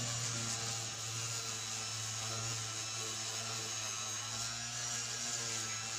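Electric palm sander running steadily with an even motor hum as its pad sands a plywood skimboard deck.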